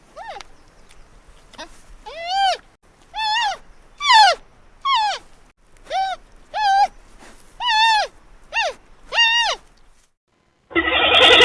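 Panda giving a series of about ten short, high chirping calls, each rising and then falling in pitch. Near the end, after a brief silence, a louder, rougher call cuts in.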